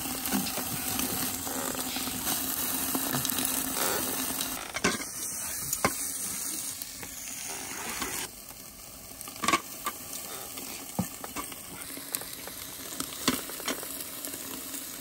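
Hot stones and meat sizzling and hissing in a steaming aluminium pot as khorkhog is layered, with a few sharp clinks. The hiss drops off about eight seconds in.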